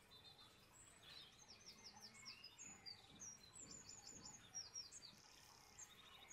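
Faint birdsong: quick series of high chirps and short down-slurred notes, over a soft background hiss.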